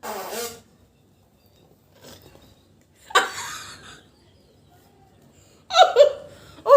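A woman laughing, breaking out loudly near the end, after a short sound at the start and a brief hissy burst about three seconds in.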